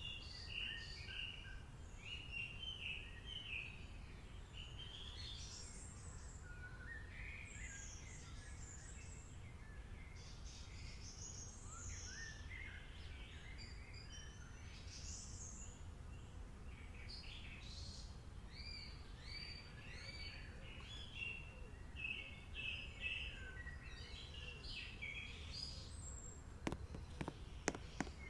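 Birds chirping and twittering over a steady low background rumble, with a few sharp clicks near the end.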